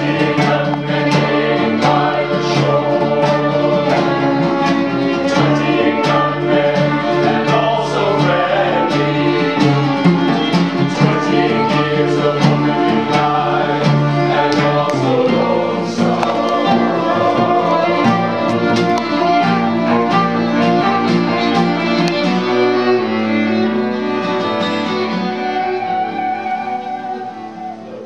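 Live acoustic ensemble of cello, violin, acoustic guitar and flute playing with singing voices; the music dies away near the end.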